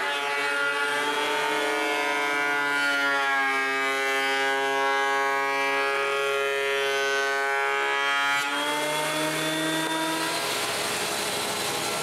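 Jointer running and cutting a maple board, a steady whine with many overtones whose pitch sags and recovers as the board is pushed across the cutterhead. About two-thirds of the way through it gives way to a rougher, noisier machine sound.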